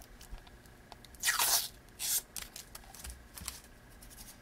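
Thin protective plastic film being peeled off the front panel of a handheld ESR meter: short crackling, tearing rustles, the loudest pull about a second in and a shorter one about two seconds in, then a few faint ones.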